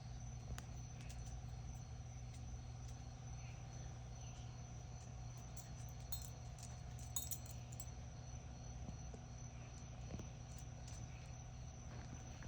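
Insects trilling steadily outdoors: one continuous high note and a fainter pulsing one below it, over a steady low hum, with a few faint clicks.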